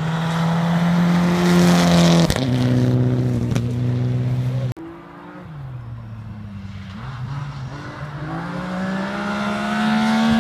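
Rally car engines at full throttle: a car accelerating hard, its engine note dropping at an upshift about two seconds in. The sound breaks off abruptly a little under five seconds in, then a rally car's engine builds, its pitch rising steadily as it approaches.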